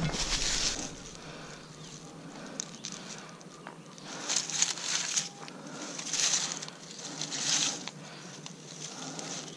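Irregular bursts of rustling and crunching as leaf litter and soil on the forest floor are disturbed. The bursts are short and scratchy, four or five of them, with quieter stretches between.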